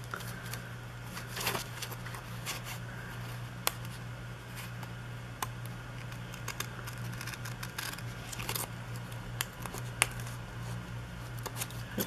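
Paper and stickers being handled and repositioned in a planner: scattered light rustles, taps and small clicks, with the occasional sharper tick, over a steady low hum.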